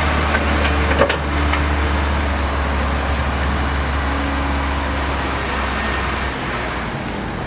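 Heavy diesel engine of road-works machinery running steadily with a deep hum, and a single sharp knock about a second in.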